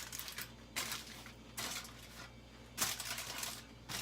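Aluminium foil crinkling in a few short rustling bursts as a sheet is tented and pressed over a plate of chicken.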